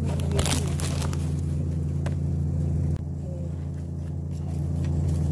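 A steady low hum, with a few sharp clicks of chopsticks against bowls and dishes, the loudest about half a second in. The hum drops slightly about three seconds in.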